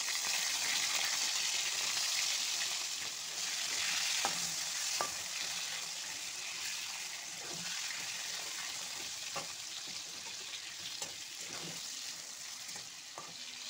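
Tiger prawns sizzling as they fry in hot mustard oil in a wok, with a spatula tapping against the pan now and then as it turns them. The sizzle is strongest at first and eases a little.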